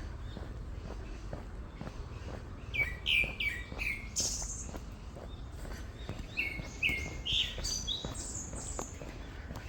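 Songbirds calling in two bursts of quick, sharp, falling notes, about three seconds in and again about six seconds in. Under them run regular footsteps on a forest path and a steady low rumble.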